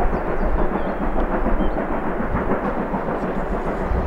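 SJ B 1323 steam locomotive working hard as it pulls a train away from a stop: a steady, loud rumble of exhaust and running gear, with faint bird chirps above it.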